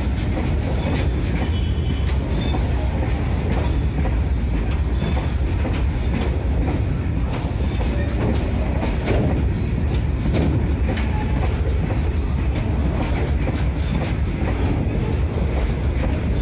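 Goods train of open freight wagons rolling slowly past: a steady low rumble of steel wheels on the rails, with frequent irregular clicks and clanks.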